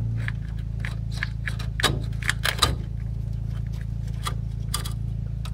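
Short metallic clicks and scrapes of hands working a fuel-line fitting loose at a pickup's frame-mounted fuel filter, over a steady low hum. The clicks come thickest about two to three seconds in.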